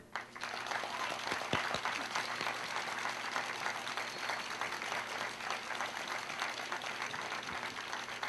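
Crowd applauding: many hands clapping at once, at a steady level.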